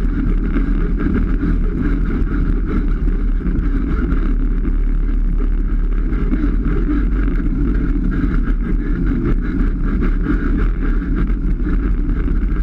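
Polaris RZR 570 side-by-side's single-cylinder engine running steadily as the machine drives along a dirt trail, heard from the hood-mounted camera.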